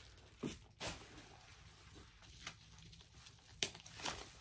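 Faint, scattered rustling and a few small clicks and knocks from a nylon backpack being handled and looked over.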